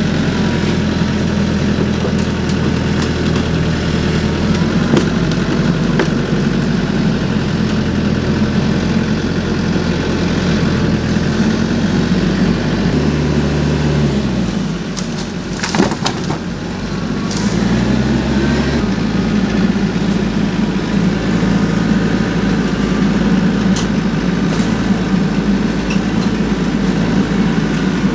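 Small tractor's engine running steadily. Its pitch drops about halfway through and climbs back a few seconds later, with one sharp crack in between.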